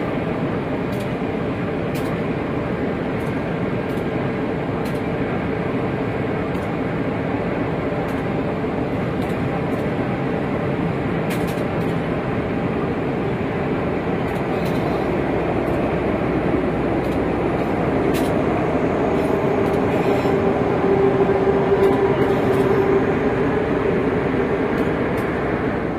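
Train of passenger coaches rolling past on the track: a steady rumble of wheels on rail with occasional faint clicks, and a drawn-out tone that comes in about three quarters of the way through.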